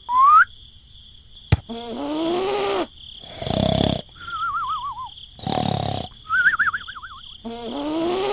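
A string of short, animal-like sound effects: a rising whistle, pitched growling cries, two noisy roar-like bursts, and two wobbling warbled tones in between.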